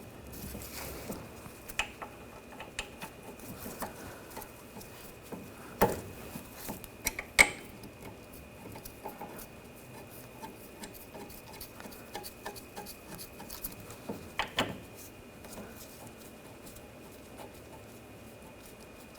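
Light metallic clicks and clinks from starting the rear brake caliper bolts by hand and handling the parts. A few sharper knocks stand out, about six seconds in, seven and a half seconds in, and again around fourteen and a half seconds. A faint steady high tone runs underneath.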